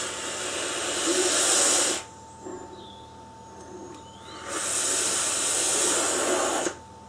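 Two long draws on an IGO-W6 quad-coil dripping atomizer, each a steady hiss of about two seconds as air is pulled through it, with a quiet pause of about two and a half seconds between them.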